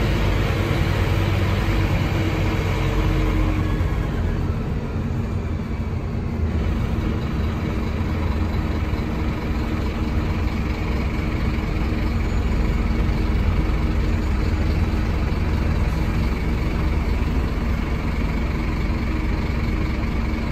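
Scania N310UA articulated city bus with a Volgren body and ZF Ecomat automatic gearbox under way, heard from inside the passenger cabin: a steady low engine drone mixed with road and body noise.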